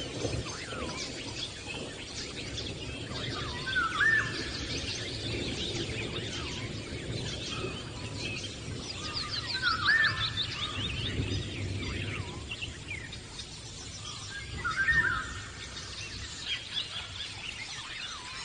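Birds singing: many quick chirps, with one louder short call phrase coming back about every five seconds, over a steady low background noise.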